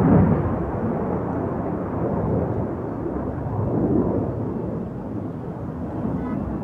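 JF-17 Thunder fighter's single Klimov RD-93 afterburning turbofan, heard as a deep jet rumble while the aircraft manoeuvres in a flying display. It is loudest right at the start and swells again about four seconds in.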